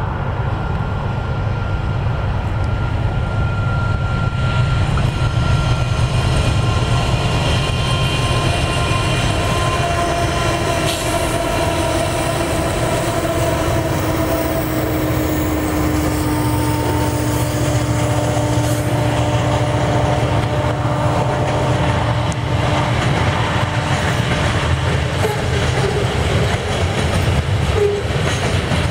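Pacific National freight train passing close by, its NR-class and AN-class diesel-electric locomotives running with a steady low rumble and several drawn-out tones that slowly fall in pitch over the first half. Then the wheels of the loaded steel-coil flat wagons roll past with a clickety-clack.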